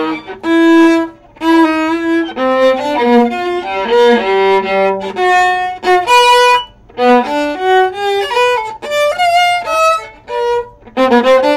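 Viola played solo with a bow: a melody of single bowed notes in short phrases, with brief breaks between them.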